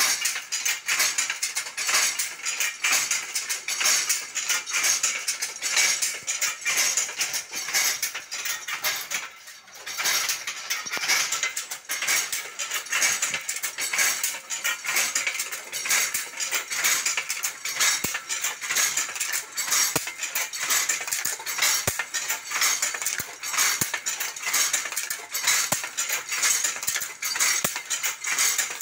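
Handlooms at work: a dense, fast, continuous clattering and clacking of the looms' moving parts, with a brief lull about nine seconds in.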